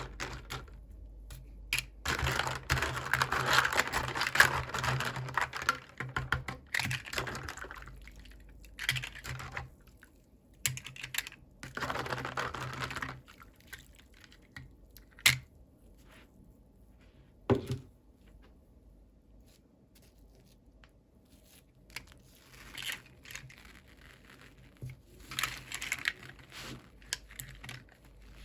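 Toy packaging being opened by hand: bursts of crinkling and tearing with small plastic clicks and taps from the miniature pieces being handled, a few sharp clicks standing out in the quieter middle stretch.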